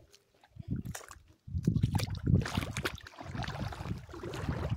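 Wind buffeting the microphone in uneven gusts, a low rumble that comes in about a second and a half in, with small waves lapping at the shore.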